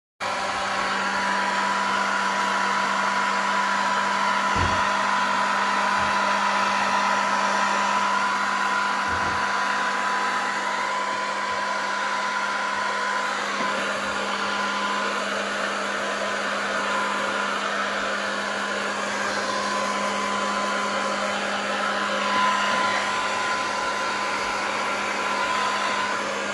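Handheld electric hair dryer running at one steady speed, an even rush of air with a constant hum, blowing on long hair. A couple of brief low knocks come from handling, about four and nine seconds in.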